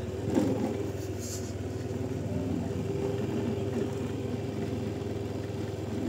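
Steady low engine hum, like an idling diesel, with faint distant voices.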